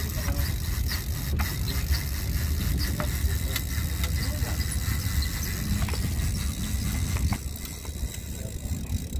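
A steady low rumble with faint, scattered clicks as a spinning reel is cranked to bring a hooked fish up to the surface.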